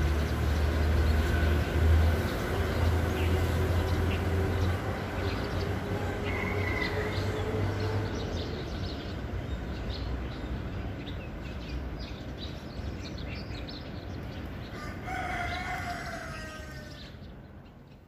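A rooster crows once with a falling call, starting about fifteen seconds in. Before that, a low rumble like a distant engine dies away over the first half, with faint scattered bird chirps, and everything fades out at the end.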